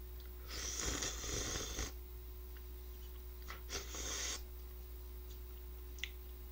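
A person slurping rice noodles off chopsticks: a long slurp about half a second in and a shorter one around four seconds, with a few small clicks.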